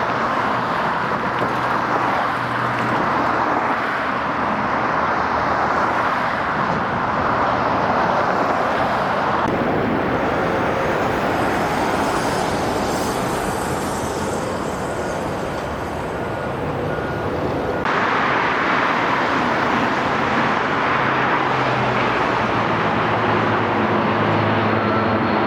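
Steady rushing noise, like road traffic or wind, with a faint low hum. Its tone changes abruptly about a third and two-thirds of the way through.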